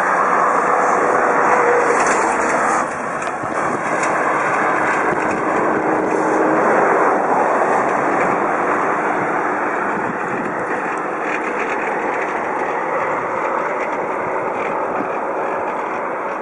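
Steady noise of travel along a road: an even rumble and hiss with no rhythm. It is loudest for the first three seconds, then drops a little and eases slowly.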